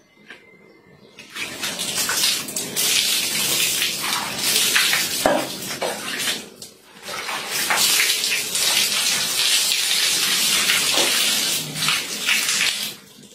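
Water poured from a plastic dipper splashing over a person and onto a tiled bathroom floor during a bucket-and-dipper bath, in two long stretches with a short break about halfway.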